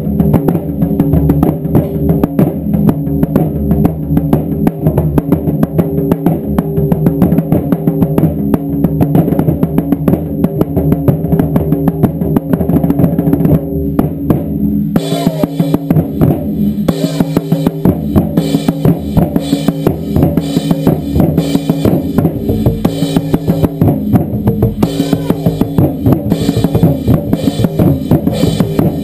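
Taiko drum ensemble pounding out a loud, continuous, fast beat of dense strikes, turning brighter and sharper about halfway through.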